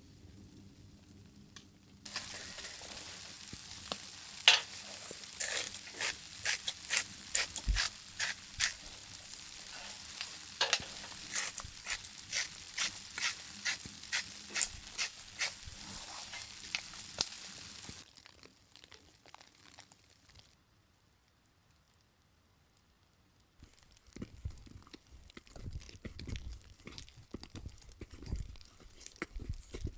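Steak sizzling in hot fat, a dense hiss with frequent sharp pops and spits, which dies down after about sixteen seconds. Near the end, after a short gap, come soft, low, irregular knocks.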